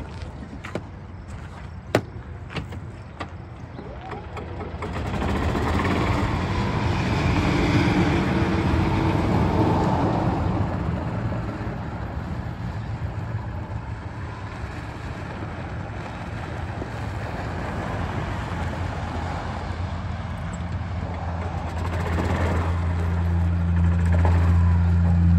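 A Yamaha golf cart running and driving across gravel, with a steady low hum and the crunch of tyres on the stones. A sharp click comes about two seconds in; the sound swells as the cart pulls away about five seconds in, eases off, then builds again near the end as it comes back close.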